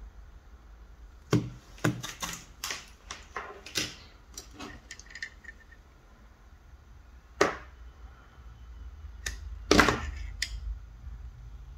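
Irregular sharp clicks and taps of hand tools and small parts being handled on a workbench, the loudest about ten seconds in, over a low steady hum.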